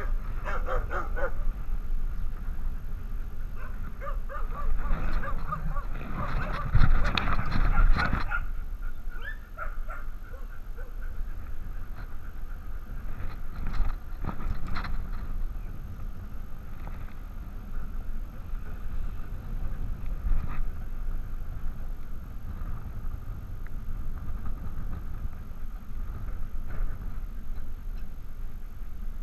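Rumble and rustle from a GoPro camera harnessed to a moving dog's back, the camera jostling against the harness and fur. A louder burst of noise comes about five to eight seconds in.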